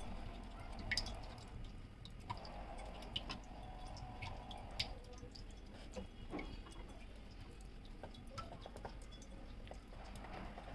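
Faint soft rubbing and patting as marinated chicken pieces are pressed and turned by hand in a tray of dry flour, with scattered small clicks.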